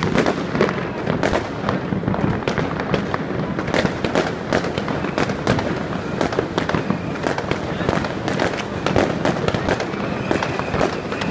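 Many fireworks going off at once: a dense, unbroken string of bangs and crackles, several a second, overlapping one another.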